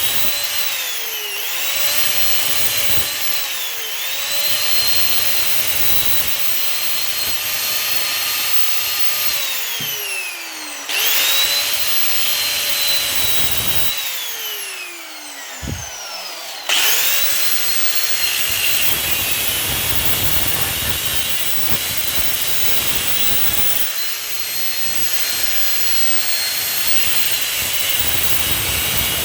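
Electric angle grinder cutting through scrap brass: a loud, high motor whine whose pitch sags under load. It spins down twice, about ten and fourteen seconds in, then starts up again and keeps cutting.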